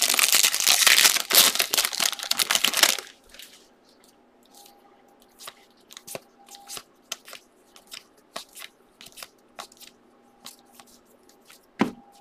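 A foil trading-card pack being torn open, a dense crinkling tear for about the first three seconds. Then the soft clicks of cards being flipped through one by one, with a louder tap near the end.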